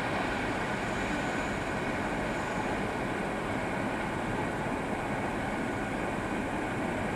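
Passenger train rolling away along the track: a steady noise of its coaches' wheels on the rails.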